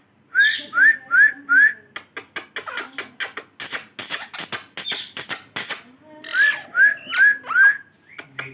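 Short rising whistles, four in quick succession, then a run of rapid clicks and rasping chirps, then four more rising whistles near the end.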